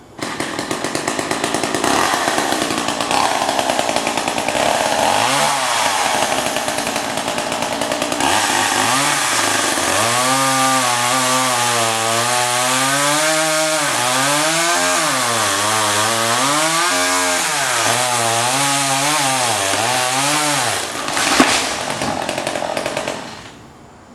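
Gas chainsaw running hard and cutting through a tree. Its engine pitch repeatedly sags and recovers as the chain bites into the wood, then it cuts off near the end.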